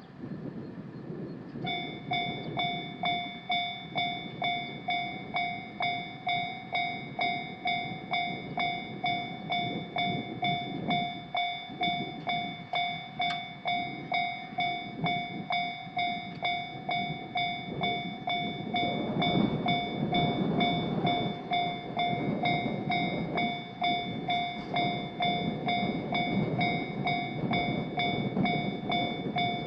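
A Japanese level crossing's electronic warning bell starts ringing a couple of seconds in, a repeated clanging tone at about three strikes every two seconds. Under it, a train rumbles past over the crossing with faint regular clicks from the wheels, loudest a little past the middle.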